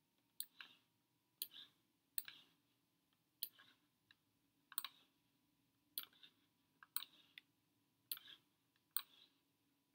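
Quiet computer mouse clicks, mostly in close press-and-release pairs, about one pair a second, each one dragging a block into place on screen.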